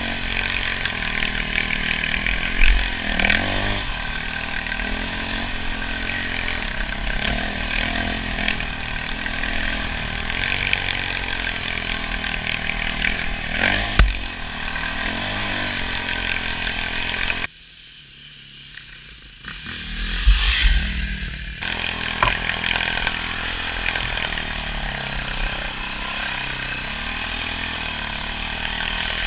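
Yamaha WR400F dirt bike's single-cylinder four-stroke engine revving up and down with the throttle while being ridden, with a couple of sharp knocks. The engine sound cuts out suddenly for about two seconds past the middle, then comes back with a loud low thump.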